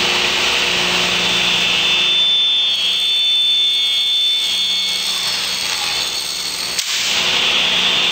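Table saw running with a steady high whine while a board is ripped along the rip fence, with a single sharp knock about seven seconds in.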